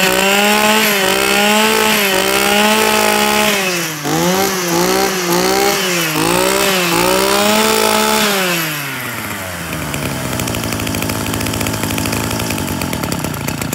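Echo (Kioritz) 23 cc two-stroke brush cutter engine running at high revs on a test run. From about four seconds in the throttle is blipped several times, and just after eight seconds it drops back to a steady idle.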